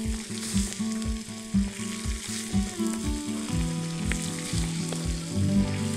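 Skinless chicken thighs sizzling in hot oil in a cast-iron kazan as they are laid in one by one to brown, with background music with a steady beat underneath.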